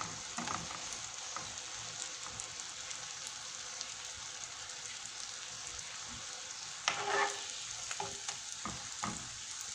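Zlabia dough frying in hot oil in a pan: a steady sizzle, with a few short scrapes and knocks of the metal spoon turning it, the loudest cluster about seven seconds in.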